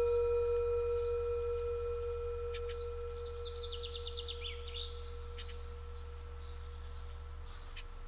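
A Tibetan singing bowl's ring dies away slowly, a low tone with a fainter higher overtone. About three seconds in, a bird sings a quick trill of falling chirps.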